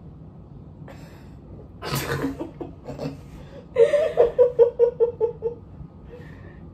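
A woman laughing: a breathy outburst about two seconds in, then a quick run of ha-ha laughs, about five a second, lasting almost two seconds.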